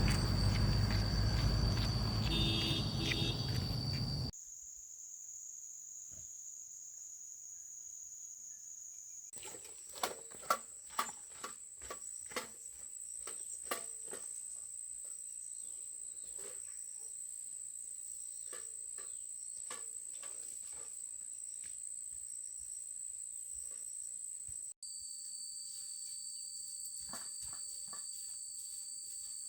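Steady high-pitched insect chorus, with a cluster of sharp knocks about ten seconds in. It is preceded by a few seconds of loud rumbling noise that cuts off suddenly about four seconds in.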